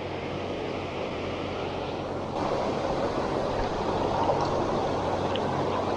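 Flowing river water rushing steadily, a little louder from just over two seconds in.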